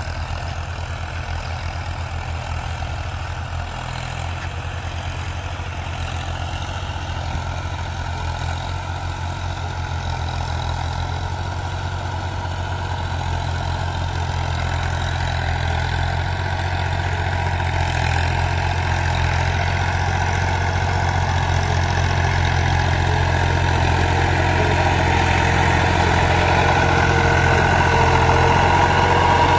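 Diesel tractor engines running steadily under load as they pull tine cultivators through tilled soil. The nearer one, a Fiat 480, grows gradually louder as it comes close near the end.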